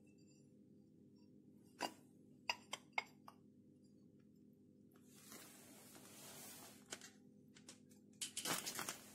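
Aluminium plate handled and set against a lathe's carriage and linear scale: a few light metal taps and clinks, a soft rustle in the middle, and a cluster of knocks near the end, over a faint steady hum.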